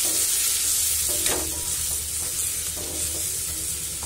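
Spatula stirring and scraping a frying masala of shallots, tomato, dried red chillies and spice powder in a metal kadai, several scraping strokes over a steady sizzle.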